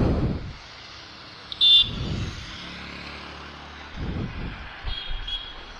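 Yamaha FZ-V3 motorcycle's single-cylinder engine running and revving as it rides in, in several surges, with short horn beeps about two seconds in and again near the end.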